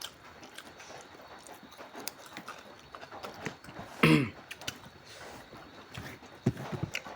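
Eating sounds up close: scattered smacking and chewing clicks, with one short voiced sound falling in pitch about four seconds in and a burst of clicks near the end.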